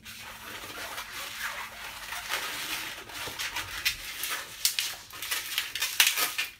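Inflated latex modeling balloons squeaking and rubbing against each other as they are twisted into lock twists, with sharper squeaks near the end.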